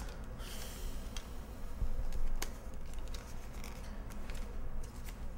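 Items being handled and rummaged through during a hand-luggage search: a few scattered sharp clicks and light rustling.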